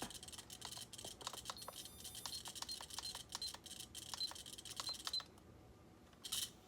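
Quick irregular clicking of the small plastic buttons and switches on a mini RC car's transmitter, over a faint high hiss, stopping about five seconds in.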